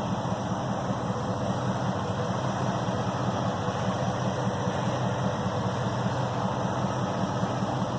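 1971 Ford Thunderbird's V8 engine running steadily, a low even throb with no revving.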